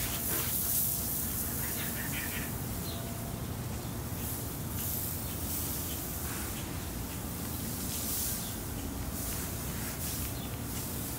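Steady hissing outdoor noise with an uneven low rumble, and a few faint short high chirps in the first few seconds.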